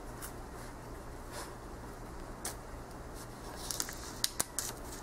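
Hands working at the sealed wrapping of a brand-new tarot deck box: scattered light crinkles and clicks, with a quick cluster of sharper clicks about four seconds in.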